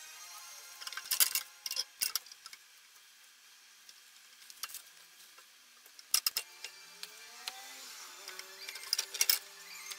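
Hand tools clicking and clinking on metal in short clusters: about a second in, around six seconds and near nine seconds.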